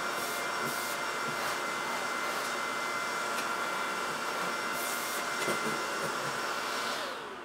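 Vacuum cleaner running steadily with a high whine over its rushing air, with a few short knocks from the hose and wand. Near the end the motor is switched off and winds down with a falling pitch.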